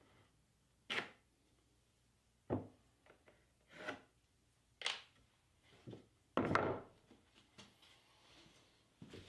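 Pressure-treated 1x4 boards being set down and shifted on a workbench: a series of separate wooden knocks and short scrapes about a second apart, the loudest and longest about two-thirds of the way in.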